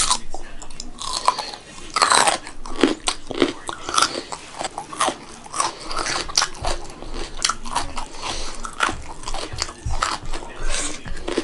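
Close-miked chewing of a mouthful of rice and vegetables, with many sharp, irregular crunches.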